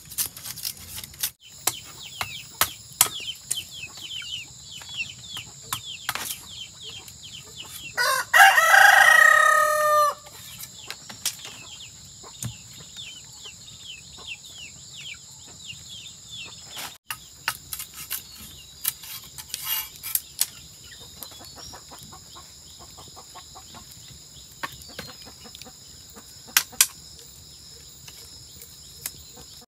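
A rooster crows once, a single call of about two seconds roughly eight seconds in, the loudest sound here. Under it runs a steady high insect drone, with scattered sharp clicks and taps.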